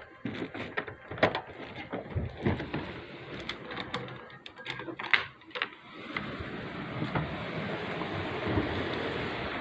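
Irregular sharp taps and knocks, then from about six seconds in a steady rush of heavy rain.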